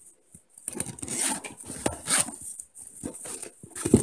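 Rustle and scrape of a PVC-coated polyester stove carrying case being handled and opened by hand. It starts about half a second in, comes in uneven scrapes with a sharp tick near two seconds in, and is loudest near the end.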